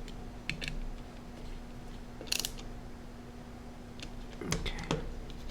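Small screwdriver clicking and ticking as it drives small screws into a handheld computer's plastic case: a few sharp clicks, a short cluster near the middle and two more near the end, over a steady low hum.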